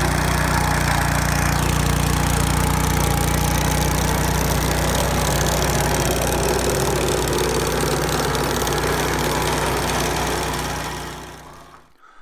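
Classen SC-18 sod cutter's small engine running steadily under load as its blade cuts a strip of turf. The sound fades out near the end.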